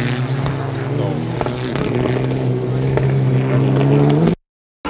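Rally car's engine held at high revs through a slide, one steady loud note that climbs slightly near the end, then the sound cuts off abruptly in the last half second.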